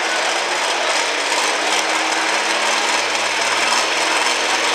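Diesel pickup truck engine running hard at full throttle while pulling a weighted sled: a loud, steady, rasping noise that holds one pitch.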